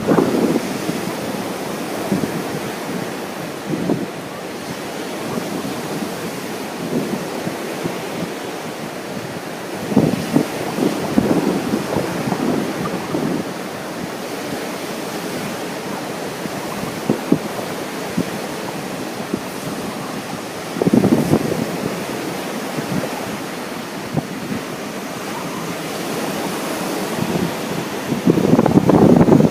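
Ocean surf washing onto a beach under strong wind, with wind buffeting the microphone. The noise runs steadily with louder surges about ten seconds in, again near the middle and near the end.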